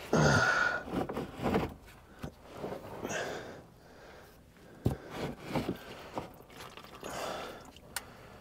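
Someone working on his back under a pickup truck: rustling and scuffing on cardboard and hand-on-part handling noises, loudest in the first second and a half, with a sharp click about five seconds in and another near the end.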